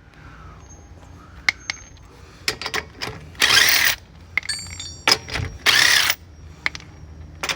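Impact wrench loosening 19 mm lug nuts, going in two short bursts of about half a second each, with light metallic clicks and clinks between them.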